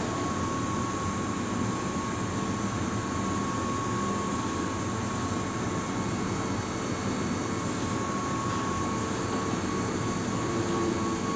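Steady hum of an electric train standing at the platform with its onboard equipment running. A faint low whine joins near the end as a Keihan 6000 series train creeps into the platform.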